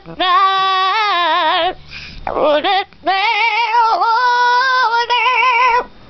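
Yellow-naped amazon parrot singing in an operatic voice with a strong vibrato, mimicking a human opera singer: one long wavering phrase, a short cry, then a second long wavering phrase that stops just before the end.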